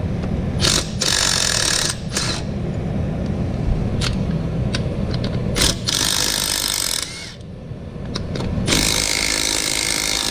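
Small impact wrench run in repeated bursts of hammering against Loctited bolts that are not breaking loose, with a few sharp clicks between the bursts over a steady low rumble.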